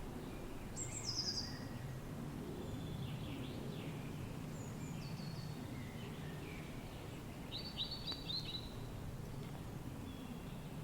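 Wind blowing in a steady low rumble while wild birds sing short clusters of quick high chirps, with a louder burst of chirps about three quarters of the way through.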